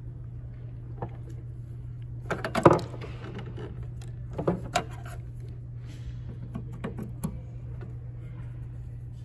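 Cables being handled and plugged in among the connectors under a mixing desk: scattered clicks and knocks, the loudest cluster about two and a half seconds in, over a steady low hum.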